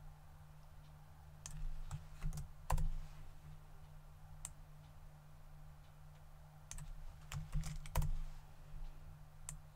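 Scattered computer keyboard keystrokes and mouse clicks: a dozen or so short, irregular taps, the loudest about eight seconds in. A low steady hum runs underneath.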